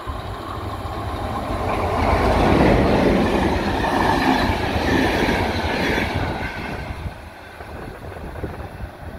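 Intercidades passenger train hauled by a CP Class 5600 electric locomotive passing close at speed, its wheels rumbling and clattering on the track. It grows louder over the first couple of seconds and fades from about six seconds in as the train draws away.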